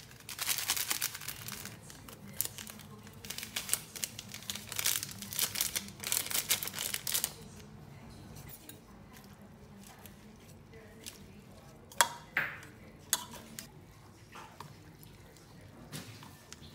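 Packaging crinkling and rustling as it is handled and torn for several seconds, then, after a quieter pause, a few sharp clinks of dishes being set down.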